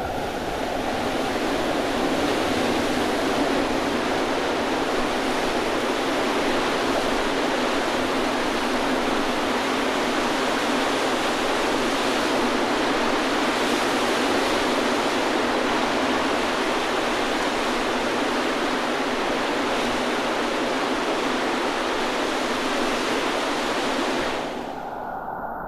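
Whitewater rapids of the Merced River rushing, a steady, even noise of fast water that stops abruptly near the end.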